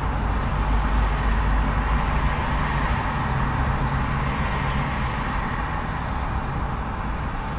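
Steady road traffic close by, a continuous low rumble and hiss of fairly heavy traffic. One vehicle swells louder about three seconds in and eases off again.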